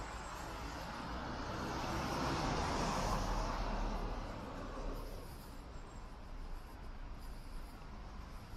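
A car driving past: its tyre and engine noise swells to a peak about three seconds in and fades away within the next two seconds, over a steady low street hum.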